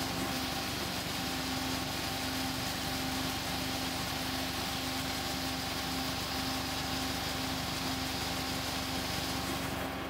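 John Deere combine harvester running steadily while it unloads corn through its auger into a grain cart: an even machine drone with a constant hum and a hiss over it. The sound drops away right at the end.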